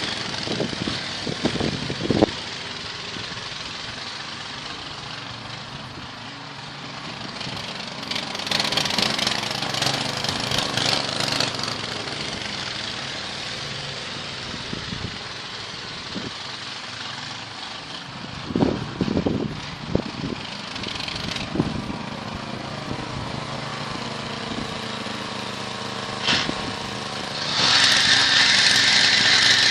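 Small 6.5 hp single-cylinder walk-behind-tractor engine, fitted in a VAZ 2109 hatchback, running steadily. It gets louder for a few seconds about a third of the way in, there are a few knocks about two-thirds in, and it picks up clearly near the end.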